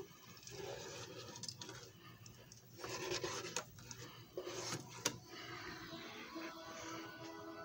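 Scraping and rubbing with several sharp clicks from a disc being handled at a disc repair machine, over a faint background of steady held tones.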